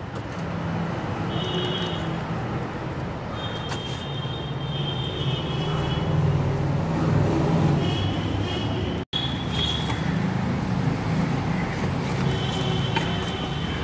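Steady rumble of road traffic from motor vehicles, with short high-pitched tones coming and going over it. The sound breaks off for an instant about nine seconds in.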